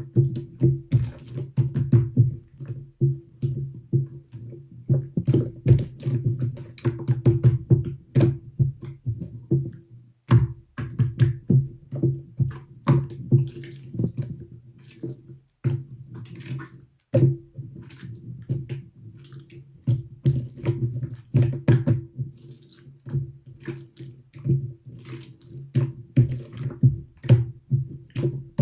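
Slime being squeezed and pressed by hand, giving a fast, irregular run of sticky clicks and wet pops, with a steady low hum underneath.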